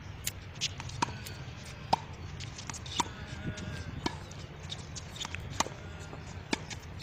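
Tennis ball rally: sharp pops of the ball off the racket strings and off the court, about eight at uneven intervals, over a low steady background rumble.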